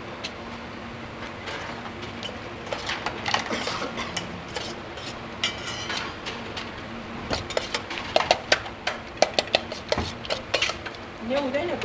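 Long steel spoon stirring and scraping peanut chaat in a stainless steel pot, with a quick run of sharp clinks of spoon on metal in the second half.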